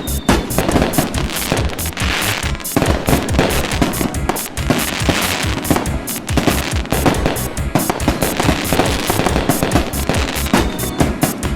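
Fireworks bursting and crackling in rapid, continuous succession, mixed with music that has a steady beat.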